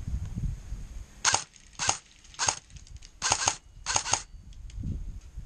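Airsoft rifle firing about seven single shots at an uneven pace, a couple of them in quick pairs. A low rustling comes before the shots in the first second.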